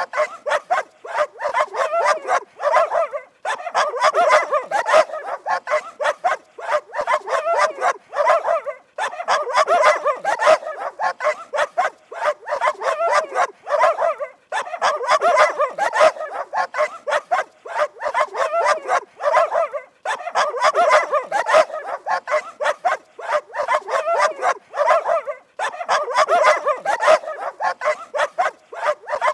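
Dog barking rapidly and continuously, in dense runs of quick barks broken by short pauses every five or six seconds.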